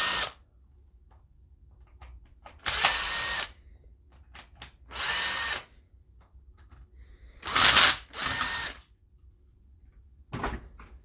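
Cordless drill-driver spinning in five short bursts, each a second or less, backing out the screws that hold the base on a power-tool battery pack.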